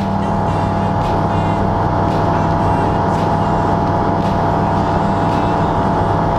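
An Aeroprakt A22L2 ultralight's Rotax 912 four-cylinder engine and propeller running steadily at full power in the climb after takeoff, heard from inside the cockpit as a steady drone.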